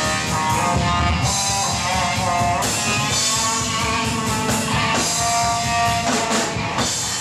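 A live rock band playing, with drum kit, electric guitar and keyboard synthesizer. Sustained notes ring over the drums, and cymbals crash every couple of seconds.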